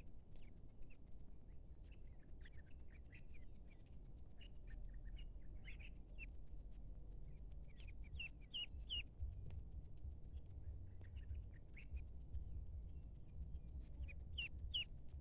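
Ducklings peeping in short high chirps, busiest about eight seconds in and again near the end. A high, pulsing insect trill stops and restarts several times behind them.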